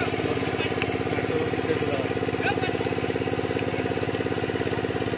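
A small engine running steadily at an even speed, its firing pulses a fast, regular throb that does not change.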